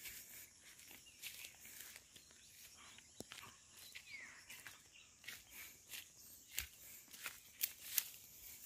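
Faint footsteps crunching through dry grass and brush, irregular, with a few louder steps near the end.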